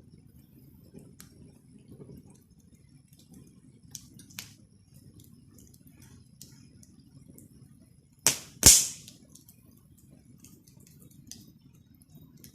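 Campfire crackling: scattered small snaps over a low steady rumble, with one loud double pop about two-thirds of the way through as the burning wood pops.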